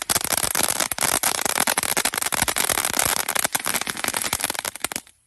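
Sword-shaped fountain firework spraying sparks: a dense hiss packed with rapid crackling, cutting off suddenly near the end.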